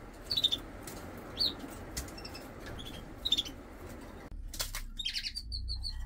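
Red factor canaries chirping: several short high chirps about a second apart over a soft rustle. After a cut, a single chirp is followed near the end by a quick run of four high, even notes.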